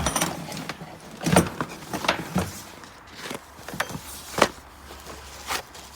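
Tools and supplies being handled and moved about: a string of separate knocks and clatters, the sharpest about four and a half seconds in, over a faint steady low hum.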